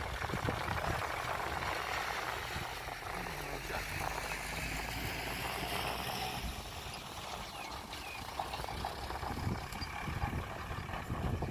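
An engine running steadily with a low hum, mixed with a noisy rattle and scattered small clicks.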